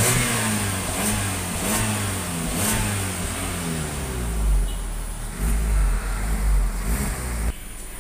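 Suzuki Splash engine revved several times with throttle blips, its pitch rising and falling, then held more evenly before dropping away sharply near the end. It is heard from beneath the car at the exhaust, which has a freshly welded-in replacement centre resonator fitted in place of the rusted-through original.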